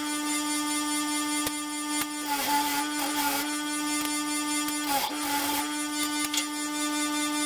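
6-inch bench grinder running with a wire wheel, a steady motor hum. Twice a metal part is pressed to the wheel, giving a short scratchy brushing as the hum dips slightly in pitch under the load.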